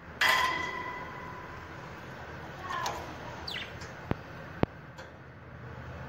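A budgerigar's toy bell rings once near the start and fades over about a second. It is followed by a few short falling budgie chirps and two sharp clicks a little after the middle.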